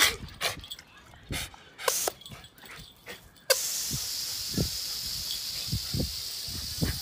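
Garden hose spraying a jet of water onto concrete, a steady high hiss. For the first three and a half seconds the spray is off and there are only a few short clicks. Then the hissing spray starts suddenly and keeps going.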